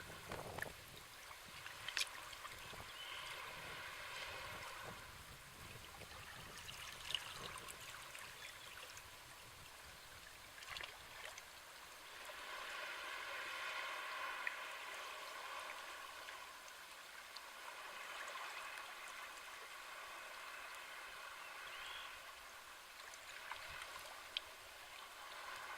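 Small sea waves washing and lapping on the shore, the wash swelling and easing every few seconds, with a few sharp little ticks.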